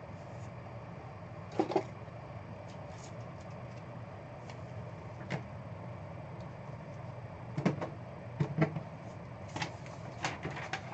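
Handling noises on a desk: scattered light clicks and knocks, a few at first and a quicker cluster near the end, over a steady low hum.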